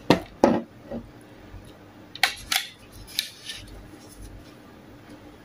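Sharp clicks and clatters on a metal serving tray as crisp bacon pieces are picked up and handled by hand. There are three knocks in the first second, then another cluster about two to three and a half seconds in.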